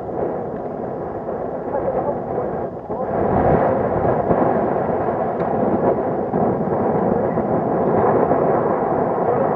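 Wind buffeting the camcorder's microphone: a loud, unsteady noise with no tone in it, which grows louder about three seconds in.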